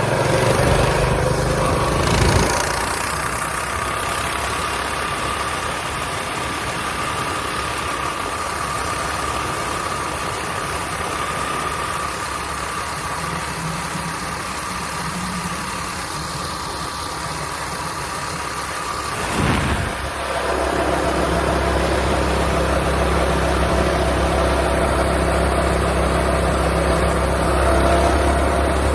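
Mini bike's small engine running steadily. About two-thirds of the way through its note shifts briefly, and after that it runs with a stronger low rumble.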